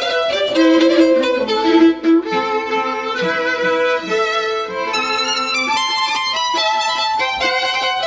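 A string trio of two upper strings and a cello, playing bowed music: a flowing melody over changing sustained notes.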